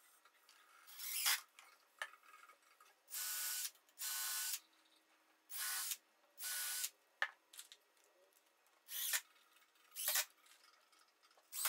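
DeWalt cordless drill-driver running in a series of short bursts, about half a second each, with its bit in the end of a pressure-treated pine chair arm.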